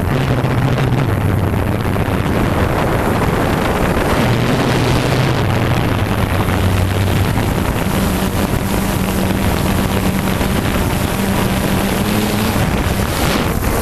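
Quadcopter drone motors and propellers buzzing steadily in flight, heard through the drone's own camera with wind rushing over the microphone. The low hum shifts in pitch several times as the motor speeds change.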